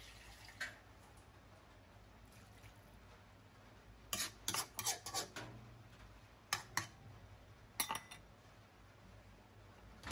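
Metal ladle stirring in a wok of watery curry, clinking and scraping against the pan in short scattered clicks, mostly in a cluster a few seconds in.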